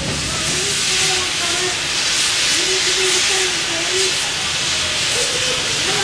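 Small steam tank engine dressed as Thomas the Tank Engine releasing steam from its cylinder drain cocks: a loud, steady hiss. People's voices can be heard faintly under it.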